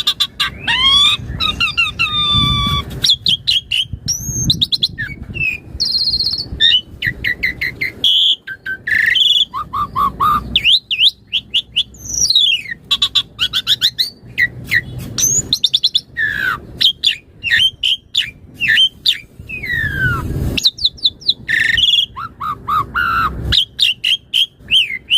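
Pied starling (jalak suren) singing continuously in full song, running through a varied repertoire of whistles, downward-sliding notes, short chirps and rapid rattling trills.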